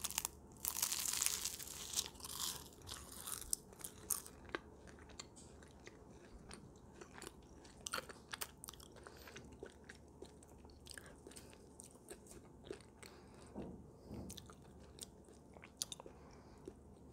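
A bite into baked puff pastry, its flaky crust crunching loudly about a second in, followed by a few more crunches and then quieter crackling chewing.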